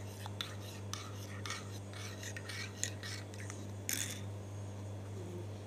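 Metal teaspoon stirring black instant coffee in a mug, scraping and clinking against the inside in quick strokes, with a louder clink about four seconds in before it stops.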